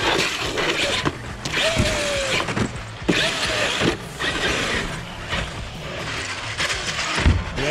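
Large electric RC monster truck driving in repeated throttle bursts: electric motor whine and tyre noise surge and drop several times.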